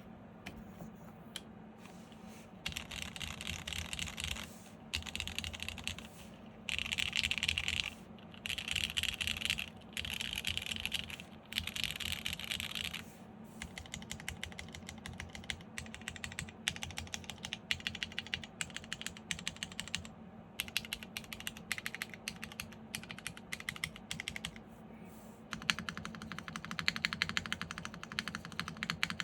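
Custom mechanical keyboard with lubed Cherry MX Black Hyperglide linear switches on a polycarbonate plate under PBT keycaps, being typed on. It starts with sparse keystrokes, then comes a series of fast bursts of typing about a second long with short pauses between them. After that the keystrokes are steadier and more separate, and a dense fast run of typing comes near the end.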